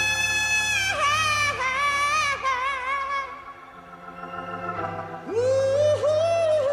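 Live hard-rock band with Hammond organ and high, long-held wailing notes with vibrato over a low drone. The sound thins out briefly midway, then a high note swoops back in.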